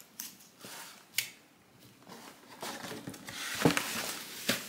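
Cardboard food box being handled and opened, scraping and rustling, with a sharp tap about a second in and a louder knock near the end.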